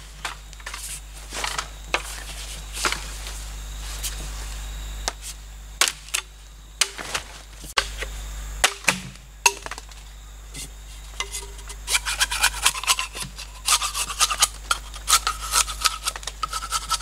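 Machete blade shaving and whittling a green bamboo pole to a sharp point: a run of short scraping cuts, spaced out at first and coming quickly one after another in the last few seconds.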